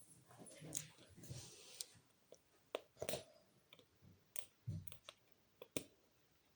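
Faint scattered clicks and brief rustles of plastic toy packaging being handled and pried at by hand.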